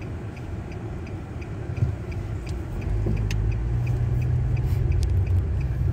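Road noise heard from inside a moving car: a steady low rumble of tyres and engine that grows louder about three seconds in, with a faint, regular ticking over it.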